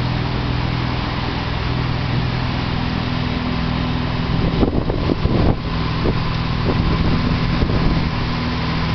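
Motorboat under way at speed in rough water: the engine runs with a steady low drone under the rush of wind and the churning wake. About five seconds in there is a short stretch of rougher, uneven noise.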